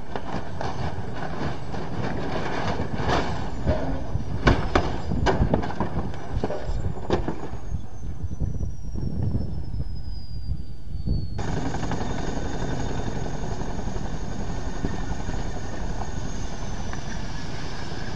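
Tandem-rotor CH-47 Chinook helicopter running on the ground as it breaks up: its rotor and turbine noise is broken by a run of loud bangs and cracks between about 3 and 7 seconds in, then a high whine falls steadily as the engines wind down. About 11 seconds in the sound cuts abruptly to a Chinook running steadily with a high turbine whine.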